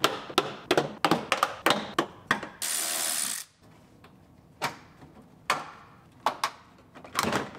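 Plastic wheel-opening molding being pulled off a Ford Explorer's wheel arch: a quick run of clicks and snaps as it unclips from its retainers, then about a second of steady hiss, then a few single clicks further apart.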